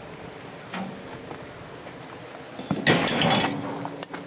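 Steel lid of a charcoal grill-smoker being shut: one loud clank about three seconds in with a short metallic ring after it, then a sharp click near the end.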